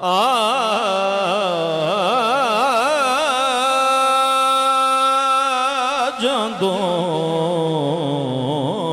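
A man singing a Punjabi naat, drawing out one long note with heavy vibrato. The pitch steadies for a couple of seconds in the middle, breaks briefly, then wavers and slides lower near the end.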